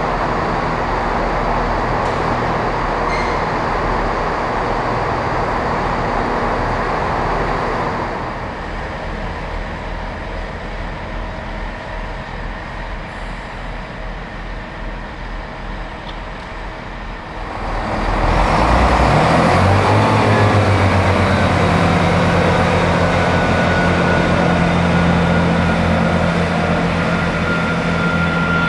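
A diesel locomotive idling with a steady hum, then a quieter stretch. About 18 seconds in, the underfloor diesel engines of a Class 165 Networker Turbo unit rev up, rising in pitch as it pulls away, then settle into a steady drone.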